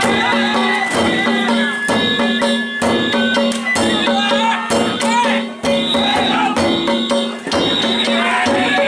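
Danjiri festival music: taiko drum and small kane gongs beating a steady repeating rhythm, with a high flute note held and stepping down in pitch partway through.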